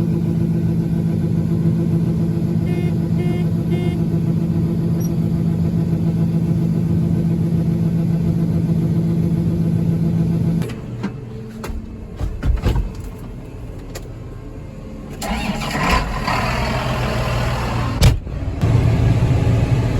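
A farm vehicle engine running steadily at an even pitch, which cuts off abruptly about ten seconds in. A few knocks follow, then a rougher, noisier machine sound.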